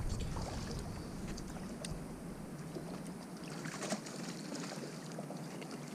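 Quiet water sounds around a small fishing boat, with a few light clicks scattered through.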